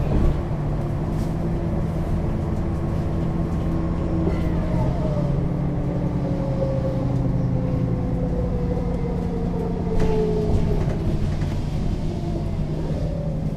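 MAN NL 283 city bus heard on board while driving: the diesel engine runs with a steady low hum under a ZF automatic gearbox whine that falls in pitch over several seconds as the bus slows. There is a sharp click about ten seconds in, and the whine rises again near the end.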